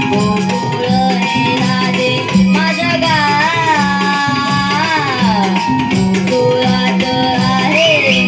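Live Naman folk music: a young boy singing a Krishna-leela song through a PA, his voice wavering on long notes, over a steady drum beat and percussion.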